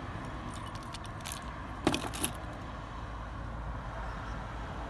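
A bunch of car keys jingles and clicks briefly about two seconds in, over a steady low background rumble.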